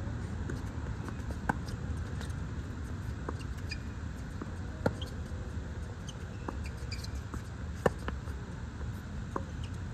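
Tennis rally on a hard court: rackets striking the ball in sharp pops, three loud hits about three seconds apart, the last and loudest a near-court forehand, with fainter hits from the far side in between. Short high squeaks of tennis shoes on the court surface.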